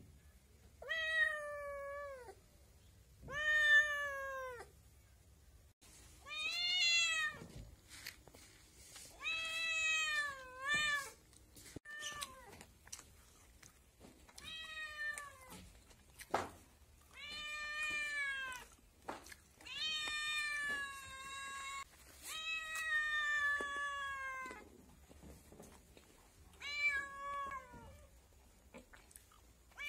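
Kitten meowing over and over, about ten meows a couple of seconds apart. Each lasts about a second or a little more and drops in pitch at the end.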